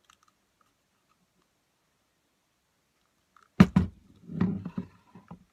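A plastic spray bottle is set down on a table with two sharp knocks about three and a half seconds in, followed by a short run of softer knocks and handling as it is steadied by its trigger head. Before that, near silence.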